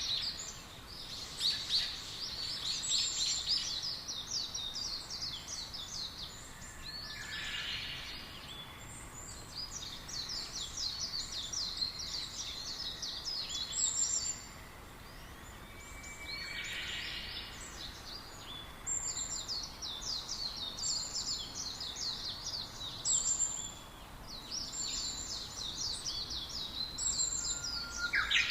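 Small birds chirping: fast runs of high, repeated notes in bouts of several seconds, with short pauses between them and a few lower calls in the pauses.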